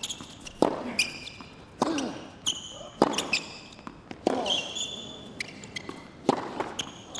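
Tennis rally on a hard court: about six sharp racket-on-ball hits, roughly one every second and a bit, with high squeaks of tennis shoes on the court between the shots.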